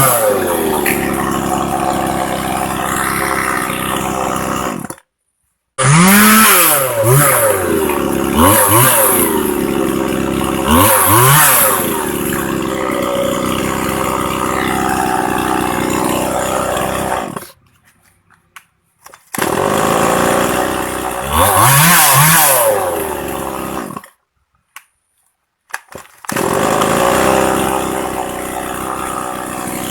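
Stihl MS 180 two-stroke chainsaw running, revved up and let back down several times between stretches of steady running. The sound cuts out abruptly three times for a second or two.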